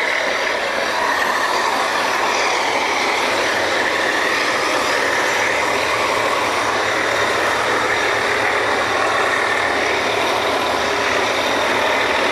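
Oil drilling rig machinery running steadily, a loud continuous mechanical noise with no breaks.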